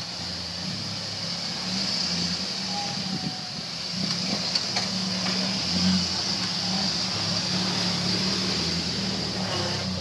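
Rock crawler's engine running at low revs as the buggy crawls over rock ledges, its steady low note getting louder and softer a few times.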